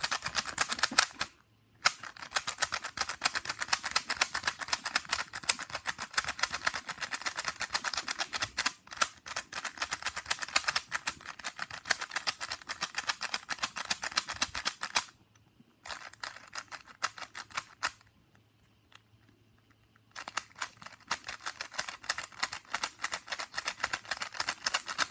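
Plastic 3x3 speed cube being turned fast by hand: a rapid run of clicking layer turns, broken by a few short pauses, the longest about two seconds.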